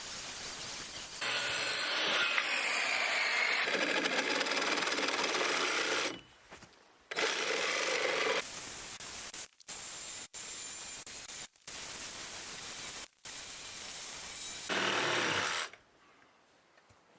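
Carpentry work noise in a string of short snippets that start and stop abruptly, a power tool running in several of them.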